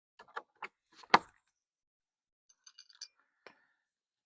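Knocks and clinks of dismantling old corral boards and their nails: a few light taps, one sharp knock about a second in, then small metallic clinks near the end.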